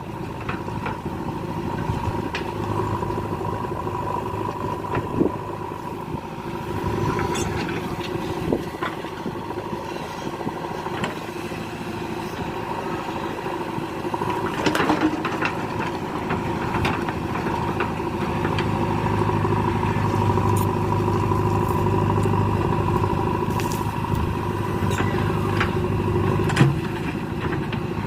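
JCB 3DX backhoe loader's diesel engine running steadily under working load, with a steady high whine and a few sharp knocks. The engine note grows louder and heavier about two-thirds of the way through.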